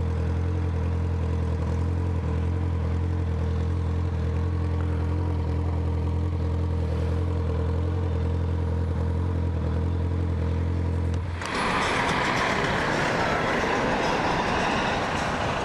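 Honda CB650F inline-four engine idling at a steady, unchanging pitch. About eleven seconds in, the steady note gives way abruptly to loud rushing wind noise across the camera's microphone as the motorcycle gets moving.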